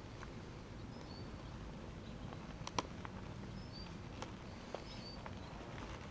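Quiet handling of a Yukon Outfitters El Capitan dry pack as hands work inside it, with a few sharp clicks, the loudest nearly three seconds in. Faint short bird chirps in the background.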